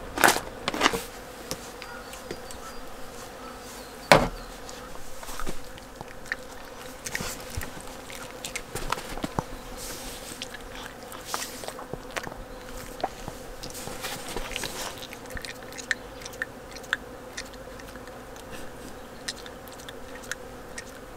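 Small dog chewing treats from a hand, short crunchy clicks scattered through, over a steady faint buzzing hum; a sharp click about four seconds in is the loudest sound.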